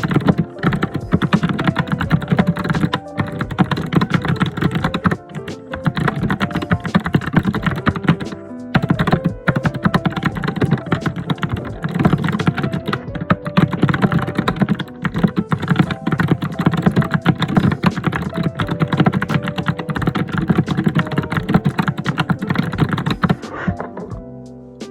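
Fast, hard typing on a computer keyboard, a dense unbroken run of keystrokes that stops about a second before the end, over soft background music.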